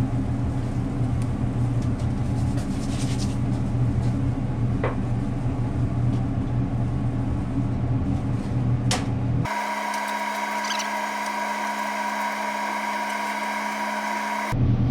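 Steady low machine hum. About two-thirds of the way through it abruptly changes to a thinner, higher steady hum with a clear tone, then switches back just before the end.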